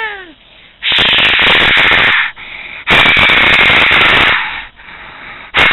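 Three loud bursts of hissing noise, each about a second and a half long, with short quieter gaps between them.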